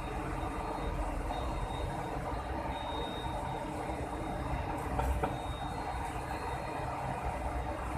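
Steady running noise of an Airbus A300-600 on the ground during an engine run check, with a faint high tone above it and a couple of light clicks about five seconds in.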